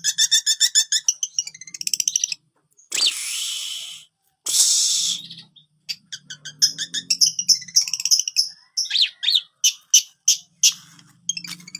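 Long-tailed shrike (cendet) singing: fast runs of repeated high chattering notes, two harsh rasping calls about three and four and a half seconds in, then quick chirps and sweeping whistles. The repeated-note phrases are its mimicry of the prinia (prenjak) song.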